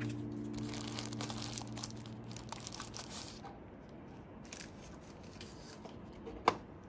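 Cardboard packaging and its paper wrapping being handled as a small mouse is unpacked: quiet, irregular crinkling and rustling with small clicks. A single sharp click about six and a half seconds in, as the mouse is handled on the desk.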